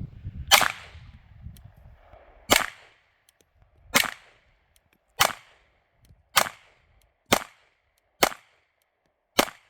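Glock 45 9mm pistol fired eight times at a steady pace, the shots about one to two seconds apart, with a magazine loaded with two different types of 9mm ammunition.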